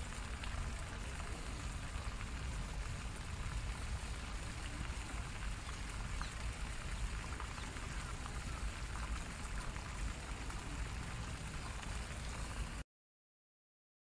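Fountain jets splashing into a pond: a steady patter of falling water with a low rumble underneath. It cuts off abruptly near the end.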